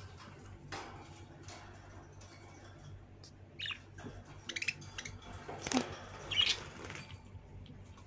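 Budgerigars giving about four short, high chirps a second or so apart in the middle, over a low steady hum.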